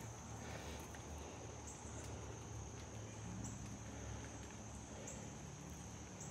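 Faint steady chorus of insects: one high-pitched trill that swells slightly about every second and a half, over a low rumble.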